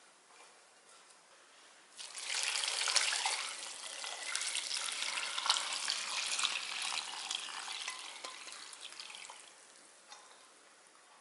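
Cooled soy-sauce brine poured from a jug onto dried pepper leaves in a glass dish: a steady splashing pour that starts suddenly about two seconds in and trails off near the end.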